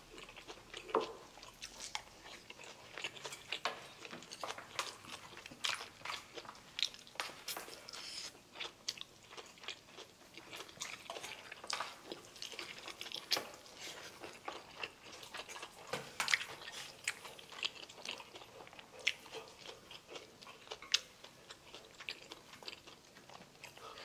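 A person chewing and biting crunchy food, with many short sharp clicks of chopsticks and a spoon against bowls and dishes scattered throughout.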